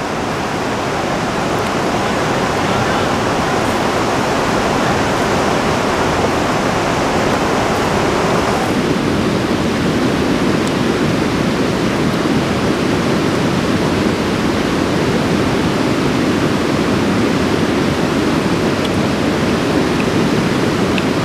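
Mountain stream rushing close by, a steady roar of water that grows deeper about eight seconds in.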